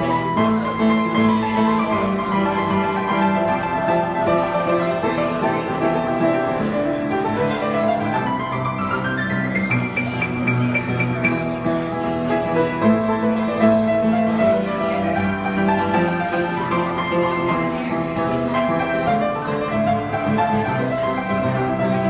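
Solo piano playing a flowing, sustained passage of many overlapping notes, with a quick rising run up the keyboard about nine seconds in.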